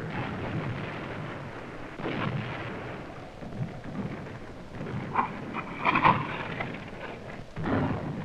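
Rumbling shell bursts of artillery fire, one about two seconds in, a cluster around five to six seconds, and another near the end, over a steady background hiss.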